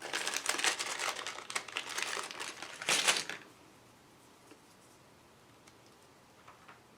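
Plastic packaging crinkling as it is handled to get at a board-game miniature, loudest just before it stops about three and a half seconds in. A few faint ticks follow.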